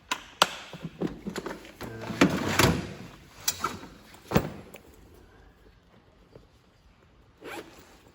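Tool kit boxes being handled and set down: a series of sharp knocks and clatters, with a denser rattling patch about two to three seconds in. After that it is quiet apart from one more knock near the end.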